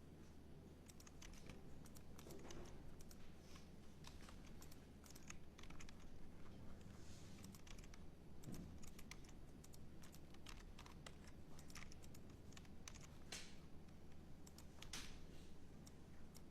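Faint typing on a computer keyboard: scattered, irregular keystrokes, over a low steady hum.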